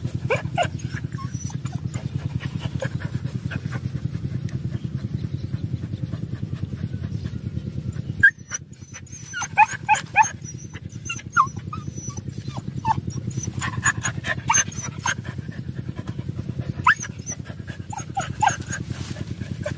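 Dogs digging and sniffing at a rat burrow, with short high whines and yelps scattered over a fast, even, low pulsing that drops out for about two seconds near the middle.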